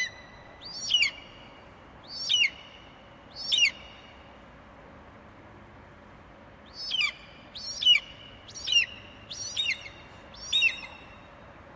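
Juvenile black-winged kite calling: short, sharp whistled calls that slur downward, about once a second. A run of four calls, a pause of about three seconds, then five more.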